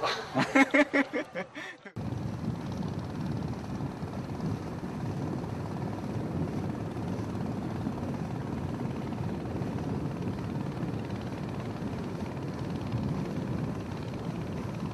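A man laughs in short bursts for about two seconds, then the sound cuts abruptly to a long-tail outboard motor driving a river canoe, running at a steady low pitch.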